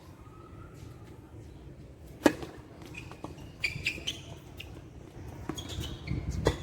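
A tennis ball struck hard with a racket about two seconds in, a single sharp crack that is the loudest sound, followed by a few fainter knocks and short high squeaks.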